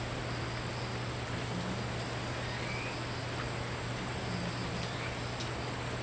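Rain falling steadily, an even hiss. A thin, steady high-pitched whine and a low hum run beneath it.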